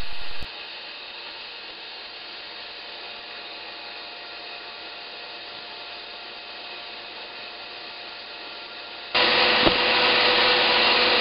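Microwave-oven fan motor spinning the magnet disc of a homemade brushless Faraday disc generator: a steady whirring hum. About nine seconds in it turns much louder, with a new steady tone above it.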